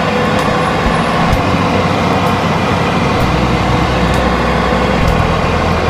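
Fan oven's convection fan running, a loud steady rush of air with a low hum.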